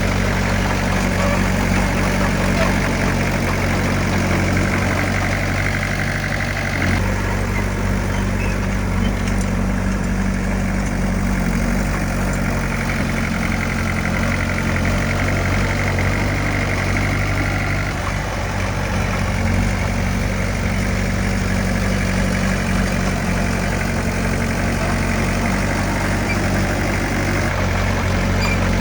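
Heavy earthmoving machine's diesel engine running steadily, its note changing about seven seconds in and again around eighteen seconds.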